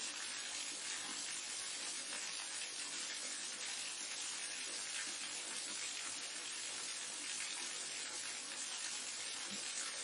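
Waterfall: a steady, unbroken rush of falling water, bright and hissing, with no changes in level.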